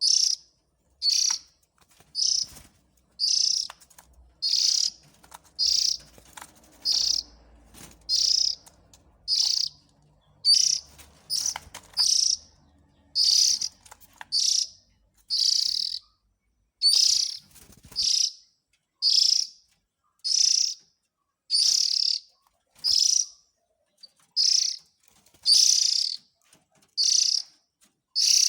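Oriental magpie-robin (kacer) giving short, harsh, hissy calls, repeated about once a second, from a lure recording used to draw the birds in.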